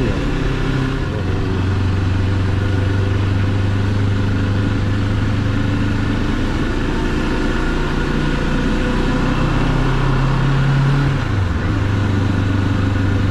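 Moto Morini X-Cape 650's parallel-twin engine running at low road speed, heard from the rider's seat over a steady rush of wind. The engine note climbs, then drops abruptly near the end as the rider shifts up a gear.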